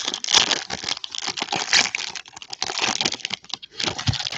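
Foil wrapper of a Panini Donruss Optic football card pack being torn open and crinkled by hand: a dense crackling rustle that runs nearly throughout.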